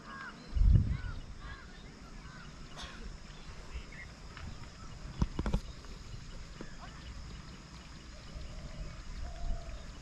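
Outdoor animal calls: many short, high chirps repeating throughout. There is a loud low thump just under a second in and a few sharp knocks around five seconds in.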